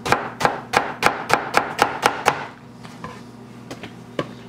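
A chef's knife chopping an onion on a plastic cutting board: a quick, even run of about nine cuts, roughly four a second, which stops a little over two seconds in. Two single light knocks on the board follow near the end.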